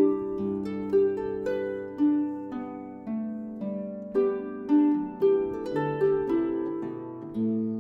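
Background music: a melody of plucked-string notes, each struck sharply and left to ring, changing about every half second to a second.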